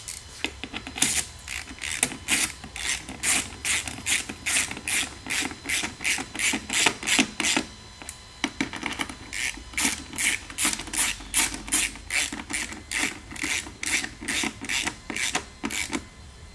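Hand ratchet wrench clicking in quick back-and-forth strokes, about three a second, as 1/4-20 seat-back bolts are run down, with a short pause about eight seconds in.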